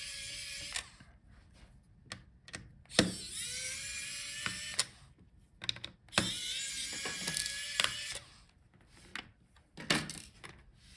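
Small electric screwdriver backing out screws from a laptop's plastic bracket: its motor whine rises in pitch and holds for about two seconds, with runs ending just under a second in, again about three seconds in and about six seconds in. Small clicks and taps of screws and handling sound between the runs.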